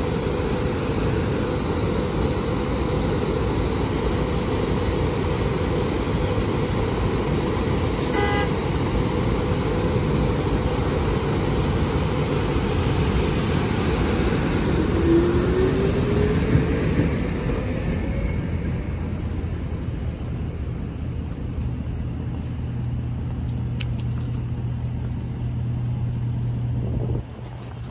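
A SEPTA electric multiple-unit commuter train passing over the grade crossing, a steady rush of wheels on rail that ends about 17 seconds in. After that a quieter stretch with a steady low hum.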